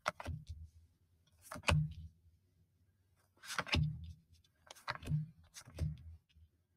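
Tarot cards being handled and laid down: about five short, soft slaps and rustles spread a second or so apart.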